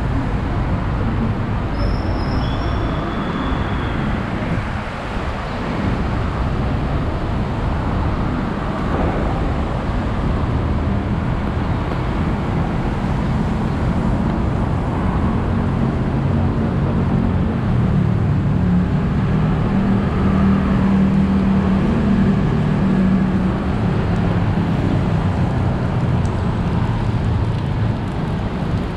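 Steady city road traffic on a wet road: cars passing with tyre hiss. A deeper engine hum from a heavier vehicle builds through the middle and fades before the end. Two short high-pitched tones sound about two seconds in.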